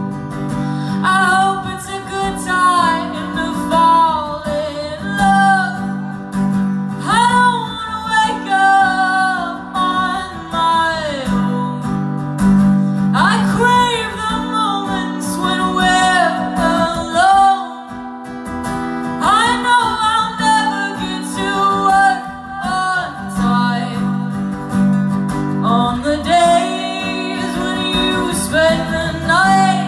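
A woman singing a slow song to her own acoustic guitar accompaniment.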